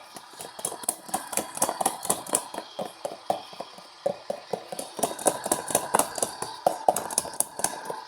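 LG washing machine running, with a rapid, uneven clicking and knocking, several clicks a second, over a faint machine hum.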